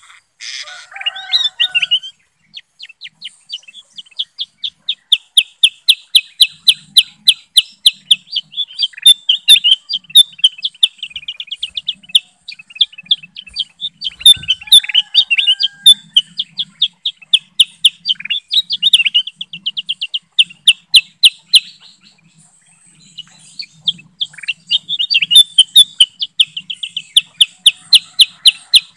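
Bulbuls singing: long, fast trains of sharp, high chirps, about six a second, with a brief lull a little after three quarters of the way through.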